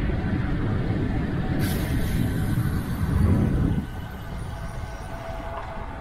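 Wind rushing over the microphone while riding a road bike, a steady low buffeting with a higher hiss joining about one and a half seconds in. The noise drops noticeably about four seconds in.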